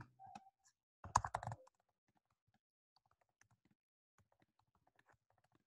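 Faint keystrokes on a computer keyboard, typing a line of text as a quick run of light clicks. About a second in there is a short, louder voice sound.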